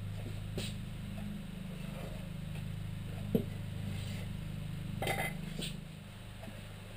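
Scattered light knocks and clinks as a plywood trailer floor is shifted into position and a mallet is set down on it, the sharpest knock about halfway through and a small cluster near the end, over a steady low hum.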